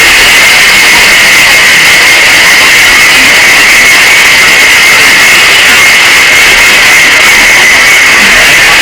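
Very loud, steady distorted noise with a shrill tone held throughout, pushed to full level and clipping.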